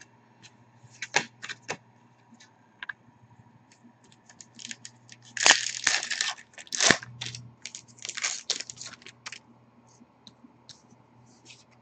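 Trading cards being handled and sorted by hand: scattered light clicks and rustles of card stock, with a louder run of rustling about halfway through.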